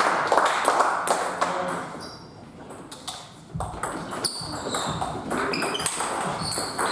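Table tennis rally: the ball clicking off the rubber-faced bats and bouncing on the table in quick alternation, with a dull thump about halfway through.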